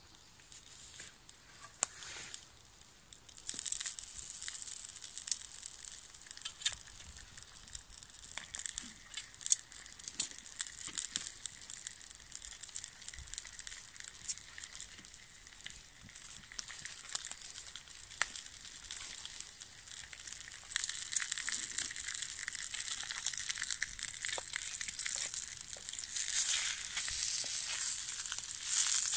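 Slices of Spam sizzling in a small frying pan: a dense crackling hiss that starts about three seconds in and gets louder toward the end.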